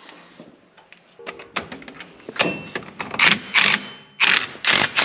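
Cordless power tool driving a socket on the bolts of a new front wheel hub assembly, run in about five short rattling bursts in the second half, after a few light clicks of the socket and bolt being set.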